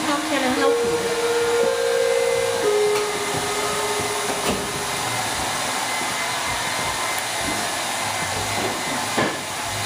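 Hand-held hair dryer blowing steadily.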